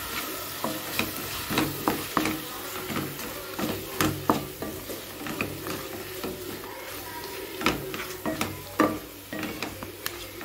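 Spatula stirring chicken and spice powders in a kadai: irregular clicks and scrapes of the spatula against the pan over a low sizzle, with the stove on low heat.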